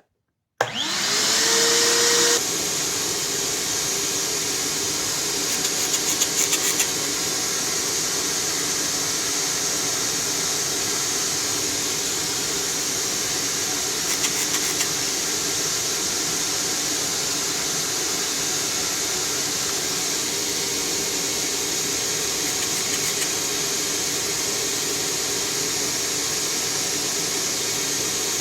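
Wet/dry shop vacuum switched on about half a second in, its motor whining up to speed, then running steadily. Its hose is connected to the car's muffler to push air through the exhaust and show a leak at a joint coated with muffler sealer.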